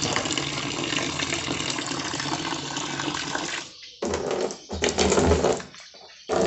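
Water gushing steadily in a strong flow out of the outlet ball valve of a home-made PVC-pipe sediment filter. It stops abruptly after about three and a half seconds, followed by a few uneven bursts of noise.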